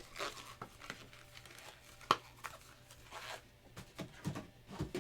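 Packaging being handled: soft crinkling and tearing with scattered light clicks and taps, the sharpest click about two seconds in.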